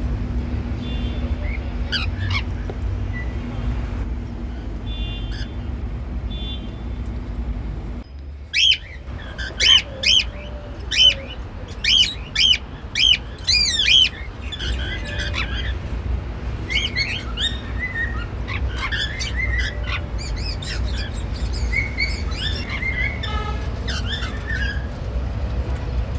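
Pet cockatiels chirping and whistling: a run of about eight loud, repeated calls in the middle, then scattered softer chirps, over a steady low background hum.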